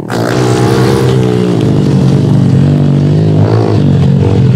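Pit bike engines revving hard, the pitch rising and falling again and again as the throttle opens and closes.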